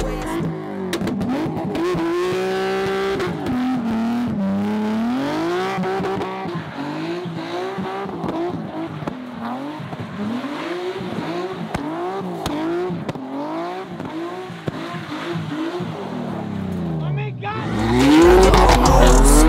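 Car engine revved hard up and down over and over, about once a second, with tires squealing, as when a car spins donuts.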